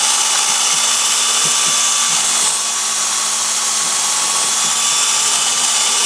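Battery-powered drill spinning a small wire wheel, running steadily as it scrubs corrosion from the inside of a fitting, with a slight dip in level about two and a half seconds in.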